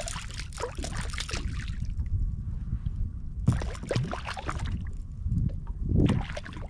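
A small barracuda on the line thrashing and splashing at the water's surface beside a kayak, in three bursts of splashing as it is grabbed by hand.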